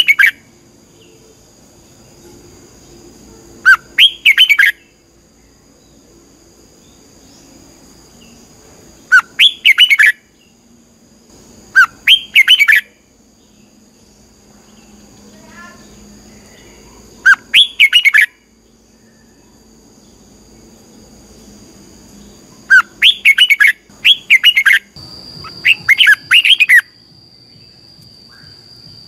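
Red-whiskered bulbul singing short, loud phrases of quick whistled notes, each about a second long, repeated every few seconds with a quicker run of phrases near the end.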